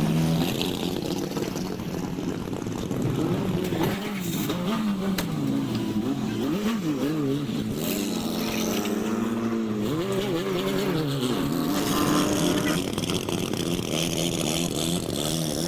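Rallycross car engines revving hard, several engine notes rising and falling over one another as the cars accelerate and shift, over a steady engine drone.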